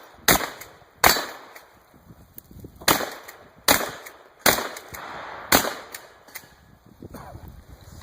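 Winchester Model 1300 pump-action shotgun firing six shots in quick succession, a pause of nearly two seconds after the second, with fainter mechanical clicks between some shots.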